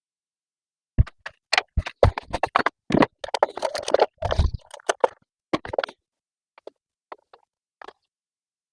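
Hands and tools working on the top of a BMW M54 engine while getting at the ignition coils: a quick run of sharp plastic and metal clicks, knocks and rattles for about five seconds, then a few scattered clicks.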